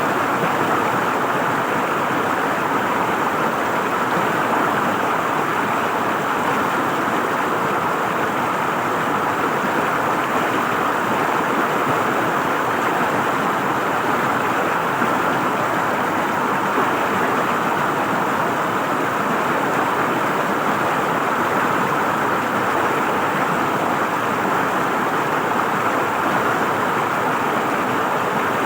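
River water flowing and gurgling over rocks in a steady, even rush.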